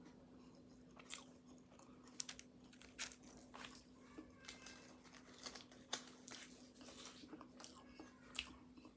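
A person biting and chewing pastry close to the microphone: irregular crunchy, crackly bites and mouth clicks, over a steady low hum.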